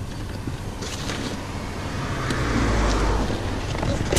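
A car going by on the road, its rumble and tyre noise swelling to a peak about three seconds in and then easing, with light rustling and clicks from a fabric tackle bag being handled.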